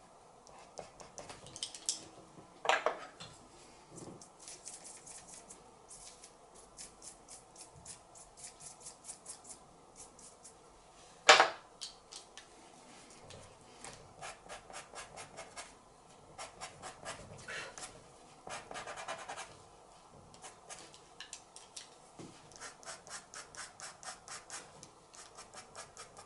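Charcoal pencil scratching on drawing paper in runs of quick, short strokes, several a second, with brief pauses between runs. Two sharp knocks stand out, one about three seconds in and a louder one about eleven seconds in.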